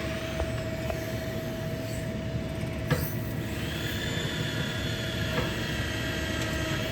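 A 135-ton CNC hydraulic press brake running a bending stroke. The hydraulic system hums steadily with a constant tone, there is a click about three seconds in, and then a higher whine comes in and holds as the ram bends the sheet.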